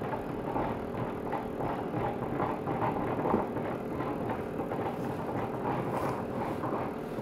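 Tepal upright garment steamer running while steaming a shirt: a steady hum under an uneven, busy noise.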